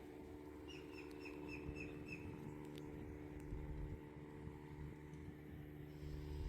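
A bird calling a quick run of about seven short chirps, each dropping slightly in pitch, lasting a little over a second, over a steady low hum.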